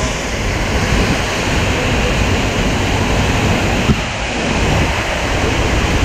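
Seljalandsfoss waterfall pouring into its plunge pool close by: a loud, steady rush of falling water, with a short knock about four seconds in.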